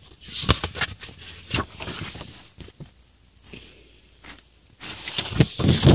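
Rustling and handling of paper booklets and documents being leafed through, with irregular small clicks and scrapes, a quiet spell in the middle and more rustling near the end.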